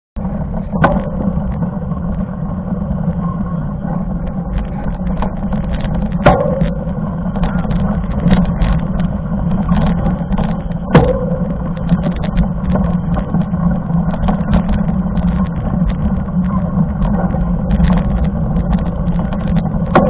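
Riding noise from a mountain bike on a gravel dirt road: a steady low rumble with constant small rattles and clicks, and three sharp knocks about one, six and eleven seconds in.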